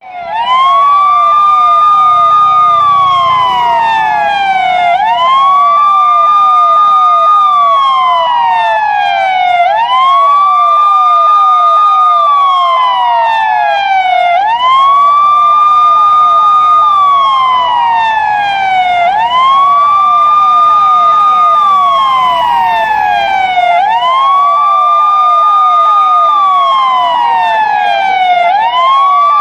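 Police car siren in wail mode. Each cycle climbs quickly to a high pitch, holds briefly and then slides slowly back down, about every five seconds, six times over.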